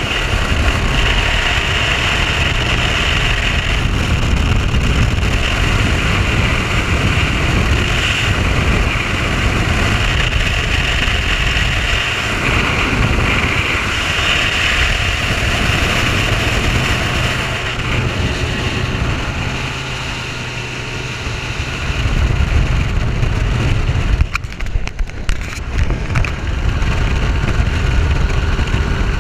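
Bass boat running at speed under its Mercury OptiMax 150 two-stroke outboard: a steady engine drone buried in a loud rush of wind and water. It eases a little about two-thirds of the way through, then picks back up.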